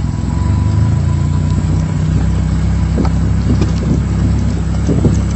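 Car engine running with a steady low hum as the car drives along, heard from inside the cabin. From about three seconds in, short irregular knocks and rattles join the hum.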